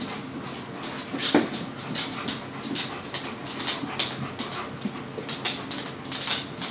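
A black dog and a grey-and-white puppy playing on a hardwood floor: scuffling and breathing, with a few small dog noises and many short clicks scattered throughout.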